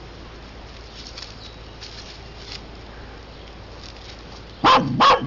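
Dry leaf litter rustling faintly as a dog noses through it, then near the end two short, loud vocal sounds in quick succession, about half a second apart.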